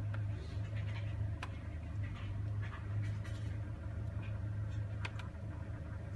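Car engine idling with a steady low hum, with scattered light ticks and faint squeaks on top.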